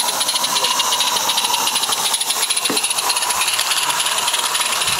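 Small live-steam garden railway locomotive running as it approaches: a steady hiss of steam with fast, even exhaust beats.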